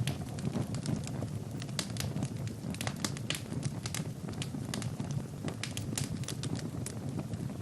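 Wood fire burning: a steady low rumble of flames with many irregular sharp crackles and pops from the burning logs.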